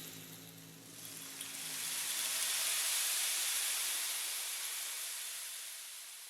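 A long high hiss that swells up over about two seconds and then slowly fades away. Under its start, the low ringing tones of a singing bowl die out.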